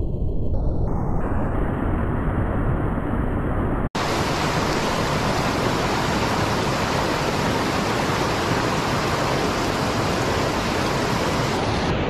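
Rocky mountain stream rushing over stones, a steady hiss of moving water. The sound cuts out for an instant about four seconds in, and after that it is fuller and brighter.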